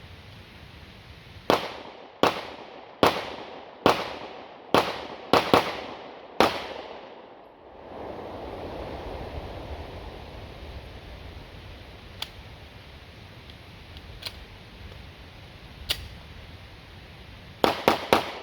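Pistol shots: eight fired at roughly one a second, the last few a little quicker, then a pause in firing, then a fast cluster of several shots near the end.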